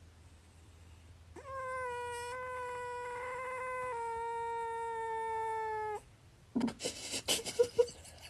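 A house cat's long, drawn-out yowl, held at a nearly steady pitch for about four and a half seconds with a slight drop partway through. It is followed near the end by a few seconds of irregular clattering and rustling.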